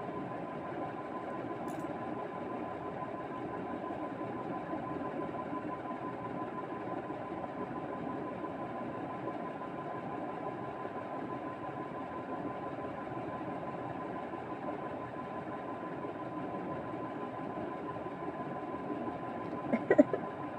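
Steady mechanical hum with a constant high-pitched whine, unchanging throughout. A couple of short, sharp sounds come near the end.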